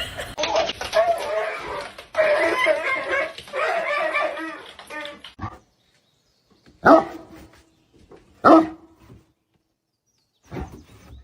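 A dog making long wavering whining, howling sounds for about five seconds, then barking: three sharp single barks about a second and a half apart and a softer one near the end.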